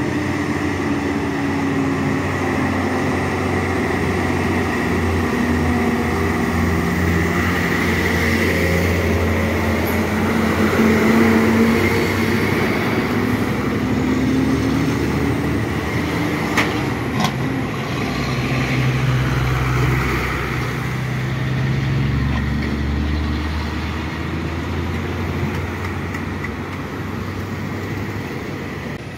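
Diesel fuel tanker truck's engine running as it passes close, its note rising and falling, with other trucks and cars in the traffic. A couple of sharp clicks about two-thirds of the way through.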